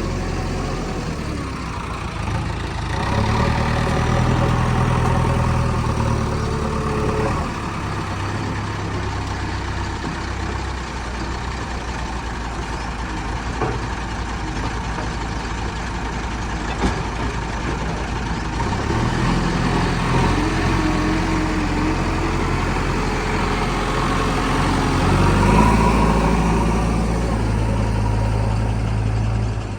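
JCB 3DX backhoe loader's diesel engine running, rising in load and pitch twice for several seconds each, about 3 seconds in and again from about 19 seconds on, as the machine works.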